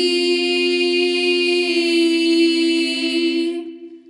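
Several voices singing a cappella, holding one long chord that fades out about three and a half seconds in.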